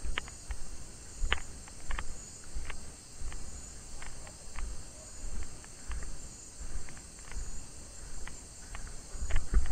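A steady chirring chorus of crickets and other insects, over footsteps crunching through dry maize leaves and stalks, with a low thud at each step and scattered clicks.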